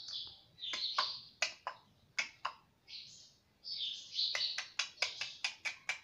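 Indian ringneck parakeet making soft, breathy chattering sounds broken by sharp clicks, with a quick run of about eight clicks in the second half.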